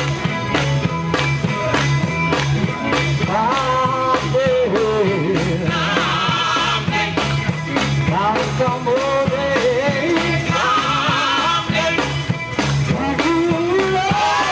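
Gospel group playing live: guitar and drum kit keep a steady beat over a repeating bass line, with singing.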